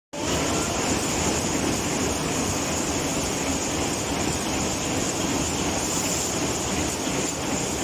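Wire-fed screw-making machines running steadily, a dense, fast mechanical clatter with a constant high hiss over it.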